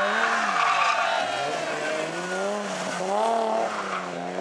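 BMW E30 rally car drifting through a tight bend, its tyres squealing as it slides, while the engine's revs rise and fall several times as the driver works the throttle and pulls away.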